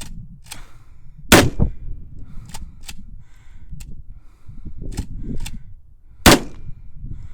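Two 12-gauge shotgun blasts from a Kel-Tec KS7 pump shotgun, about five seconds apart, with lighter clacks of the pump being worked between them. Wind buffets the microphone throughout.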